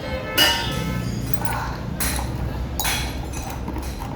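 Metal striking metal during motorcycle engine work: a few sharp, ringing clinks spaced roughly a second apart, over a low steady hum.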